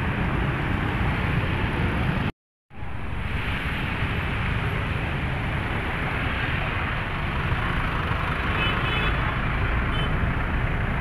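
Busy street traffic: motorbikes and cars running past on a wet road, a steady rush of engines and tyres. It cuts out briefly about two and a half seconds in, then resumes.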